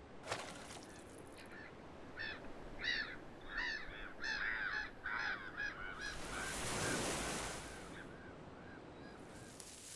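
Gulls calling in a quick series of squawks, with a wave washing in and out about six to eight seconds in while fainter calls carry on.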